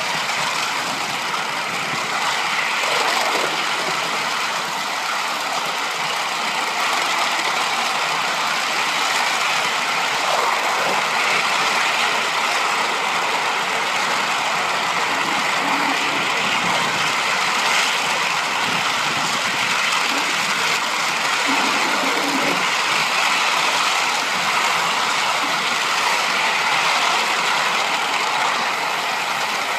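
3½-inch gauge live-steam model of a BR Standard Class 9F 2-10-0 running on its track: a steady hissing running noise of steam and wheels on the rails.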